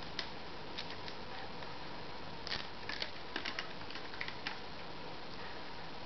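Scattered small clicks and rustles of hands handling a hard-drive caddy and adhesive tape, over a steady low hiss.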